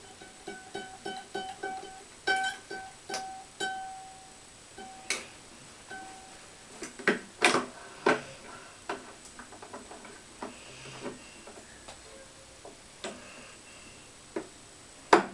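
Taut racket strings ringing in short twangs of one pitch as the string is worked through the string bed, about ten in the first four seconds. Then scattered clicks and knocks from the stringing machine's central clamp, the sharpest just before the end.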